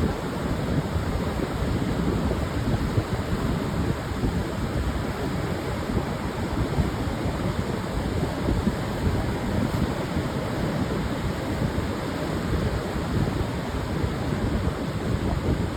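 Pacific surf washing onto a wide sandy beach, mixed with wind on the microphone: a steady, rushing noise with a low rumble and no single breaker standing out.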